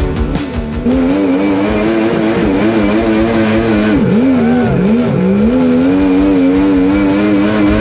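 Mini jet boat's engine running hard at high revs. Its pitch drops sharply twice about halfway through as the throttle is eased, then climbs back and holds steady.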